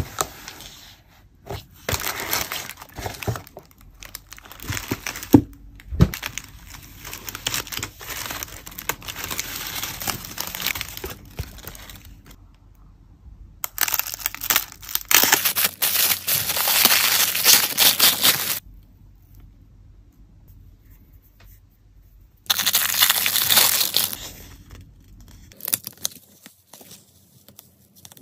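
Close-up unboxing of stationery: paper and plastic packaging crinkling and rustling, with many small clicks and taps. About halfway through, a few seconds of continuous sticky peeling as a seal is pulled off a roll of PET tape. Near the end, a shorter stretch of tape being pulled off the roll, with quieter pauses between.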